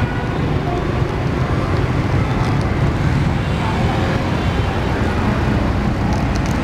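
Steady din of busy street traffic, mostly motorbike and scooter engines passing through an intersection.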